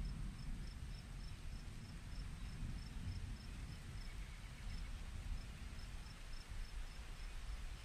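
A cricket chirping in a steady run of short, high pips, about three a second, pausing briefly near the middle, over a low rumble.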